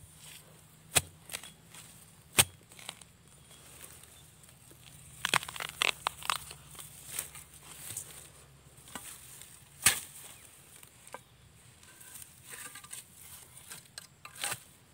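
Digging bamboo shoots among dry bamboo litter: sharp knocks, the loudest about one, two and a half and ten seconds in, with a run of crunching and crackling between about five and seven seconds.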